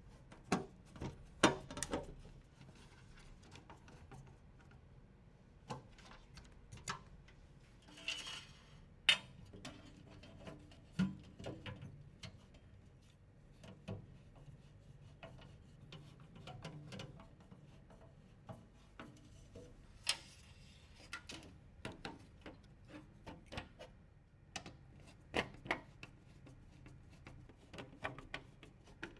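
Scattered sharp clicks, taps and knocks of computer parts being handled and fitted together, with two brief rustles, one about eight seconds in and one about twenty seconds in.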